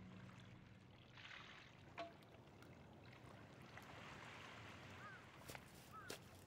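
Near silence: a faint ambience of pond water and wind, with a soft click about two seconds in and two short chirps near the end.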